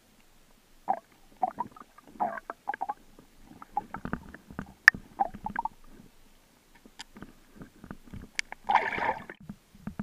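Muffled underwater sound picked up through a submerged camera's housing: irregular clicks, knocks and gurgles, with a louder gurgling rush about nine seconds in.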